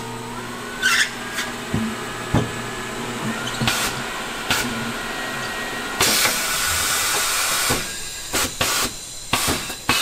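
Hunter Auto34S tire changer breaking the lower tire bead: its motor hums for the first two seconds, the machine clicks and knocks now and then, and a loud hiss of air runs for about two seconds a little past the middle.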